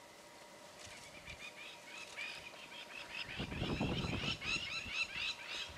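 A flock of crowned lapwings giving rapid, repeated shrill alarm calls that start about a second in and grow busier, typical of a jackal or other predator moving close by. A low rumbling noise comes in about halfway through.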